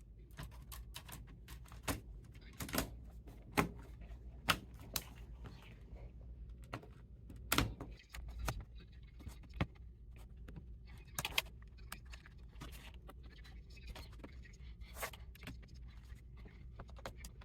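Irregular light clicks and taps of hands handling a laptop, with a few sharper knocks now and then.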